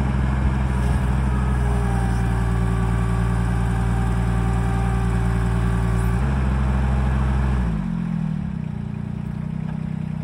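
Kubota D722 three-cylinder diesel of a mini excavator running steadily under load while its hydraulics hold the rear of a pickup truck off the ground. A higher steady whine joins about two seconds in and stops about six seconds in; about eight seconds in the engine note changes, its deepest part falling away.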